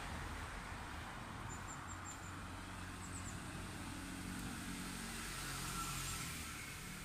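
Outdoor ambience of road traffic: a steady low hum of passing motor vehicles that swells slightly near the end, with a few faint, high bird chirps early on.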